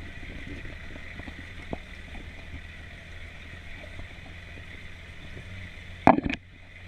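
A 4x4 vehicle driving slowly over a rough track, with a steady low hum and scattered small knocks. A loud sharp thump comes about six seconds in.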